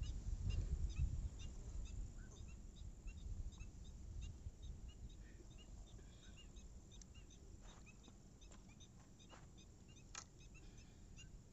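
Short, high bird chirps repeating steadily over faint outdoor quiet. A low rumble, strongest at the start, fades over the first few seconds, and a few light clicks come in the second half.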